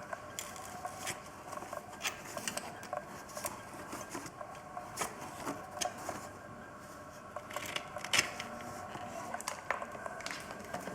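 Light, irregular clicks and taps of wiring connectors being unplugged and handled on a quad bike engine, over a faint steady hum.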